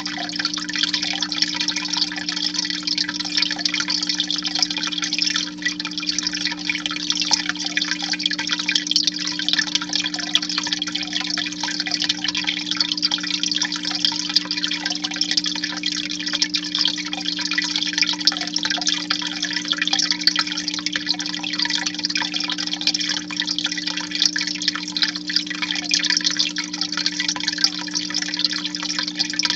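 Aquarium filter running: water trickling and splashing steadily into the tank, over a steady low hum.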